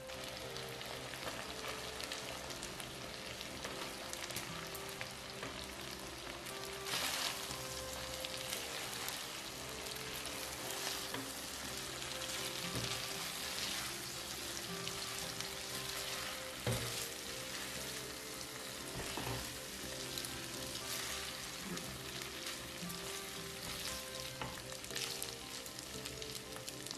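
Shrimp and spaghetti sizzling steadily in butter-garlic sauce in a nonstick pan while tongs toss the pasta, with a couple of louder knocks of the tongs against the pan.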